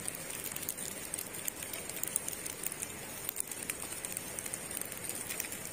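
Light rain pattering: a steady hiss made of many fine, irregular ticks.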